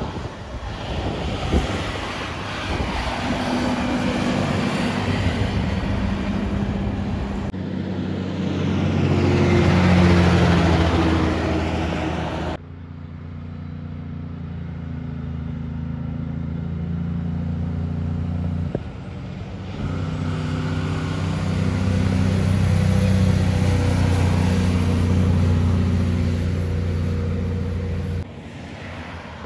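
Heavy semi-trailer trucks driving past one after another, each a deep steady diesel engine drone over tyre and road noise. The sound changes abruptly several times as one pass gives way to the next.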